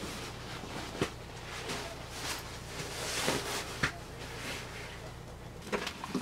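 Nylon backpack and gear being handled: fabric and straps rustling, with several sharp plastic clicks of the pack's buckles and fittings as it is strapped on.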